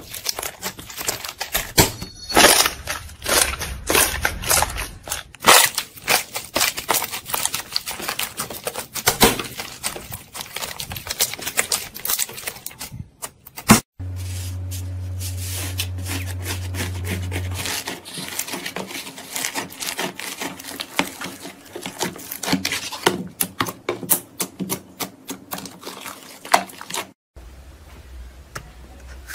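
Hands stretching, poking and pressing slime, with rapid, irregular small clicks and pops. A steady low hum sits under it for a few seconds from about the middle.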